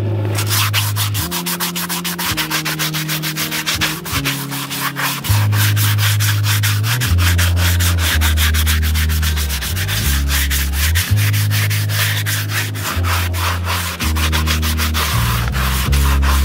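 Farrier's rasp filing the hoof wall of a shod horse's hoof in quick, repeated scraping strokes, over low background music.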